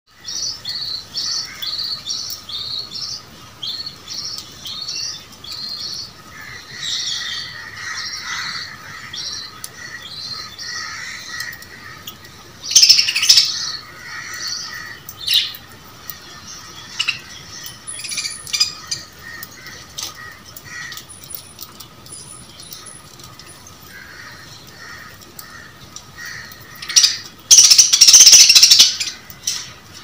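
Budgerigars chirping and warbling, with loud harsh squawks about thirteen seconds in and again near the end as they squabble at the food dish.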